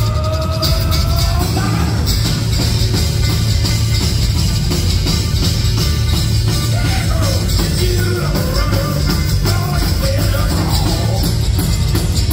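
Live rock band playing a loud thrash-metal and bluegrass song: drum kit, bass guitar and guitars together in a steady, dense wall of sound.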